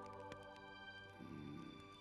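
Quiet background music: a soft chord of several sustained, held tones.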